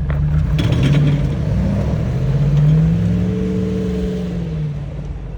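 A truck engine revving, its pitch climbing to a peak about three seconds in and then falling away.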